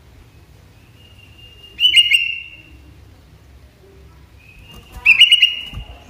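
Sooty-headed bulbul calling: two loud bursts of quick chirpy whistled notes about three seconds apart, each led in by a faint thin whistle. A low thud comes just before the end.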